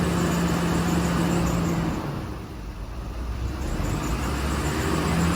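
2006 Hummer H3's engine running as the accelerator pedal is pressed, easing off about two seconds in and building again near the end, with a squeak from the drive belt or a pulley. Water on the belt quiets the squeak only for a while, and the tensioner is under suspicion.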